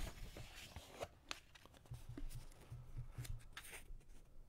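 Faint rustling and light clicks of a book's paper page being turned and handled.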